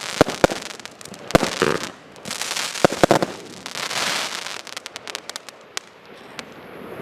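Firework barrage going off: sharp bangs in the first second or so, then hissing surges, then a fast run of crackling pops that thins out near the end.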